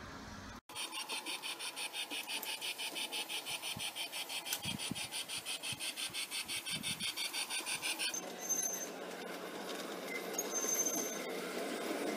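G-scale model steam locomotive running with its sound unit giving a steady chuff, several short hissing puffs a second. About 8 s in this gives way to the steadier rolling noise of a model train running on the track, growing louder near the end as the coaches pass close by.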